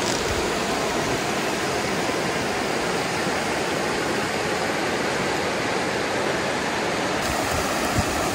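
Shallow stream water rushing steadily over smooth rock ledges of a natural water slide, with small white-water cascades.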